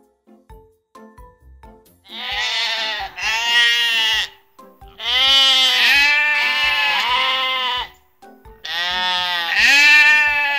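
Sheep bleating: four long bleats, the first starting about two seconds in, the third the longest, each with a quavering pitch.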